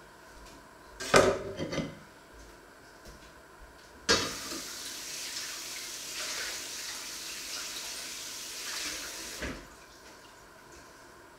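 Dishes clattering briefly about a second in, then a kitchen tap running into the sink for about five seconds before it is shut off.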